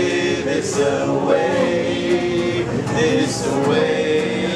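Several male voices singing a song together.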